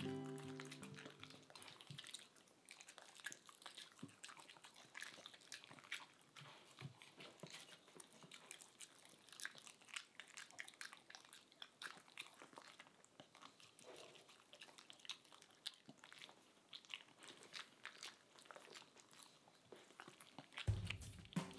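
Corgis faintly chewing and crunching small hard treats, with many small irregular crunches and licks at wooden dishes. Background music fades out over the first two seconds and comes back in near the end.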